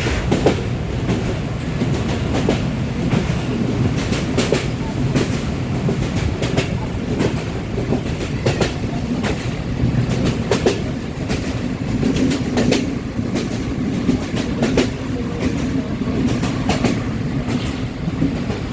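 Passenger train running along the track: a steady rumble with wheels clicking over rail joints, the clicks often coming in pairs. A steady low hum joins about two-thirds of the way through.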